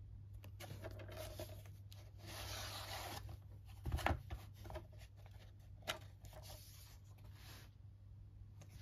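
Cardboard and plastic DVD packaging being handled: rustling and rubbing of card, a louder knock about four seconds in, a sharp click near six seconds, and the fold-out card sleeve sliding open near the end.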